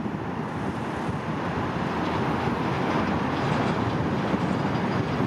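Airbus A319-114's twin CFM56 turbofans at takeoff thrust during the takeoff roll: a steady rumble that grows slightly louder about a second and a half in.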